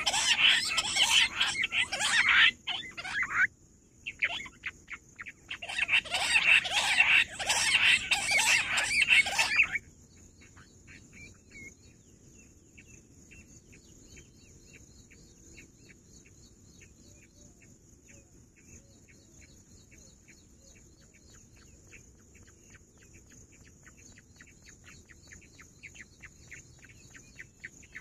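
Rock bush quail (Perdicula argoondah) calling in a loud, rapid chattering series, in two bouts over the first ten seconds with a brief pause between them. After that the calling drops to faint, quick repeated chirps.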